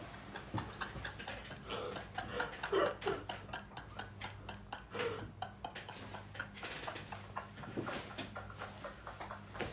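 A man's quiet, breathless laughter: irregular gasps, wheezes and small clicks rather than voiced laughs, over a low steady electrical hum.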